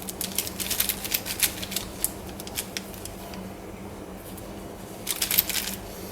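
Plastic 5x5x5 Gear Cube being turned by hand for the first time: its gears and pieces click in quick irregular runs, thinning out after about two seconds, then another run near the end.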